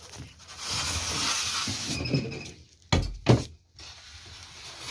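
Packing being handled in a cardboard box with a plastic-wrapped wire oven rack. A rustle of plastic and cardboard lasts about two seconds, then come two sharp knocks about a third of a second apart.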